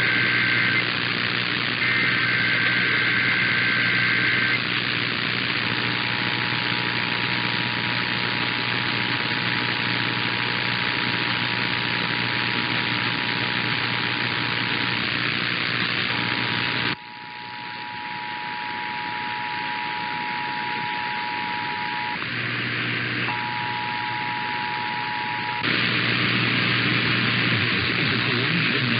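Emergency Alert System test tones received by radio under heavy static hiss: two short SAME digital header bursts, then the steady two-tone EAS attention signal, which cuts out briefly twice. The hiss drops sharply about seventeen seconds in and comes back a few seconds before the end.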